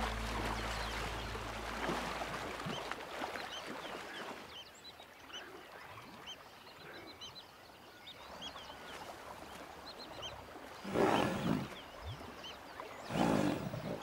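Small birds chirping over a river, then two loud animal calls, each about a second long, near the end.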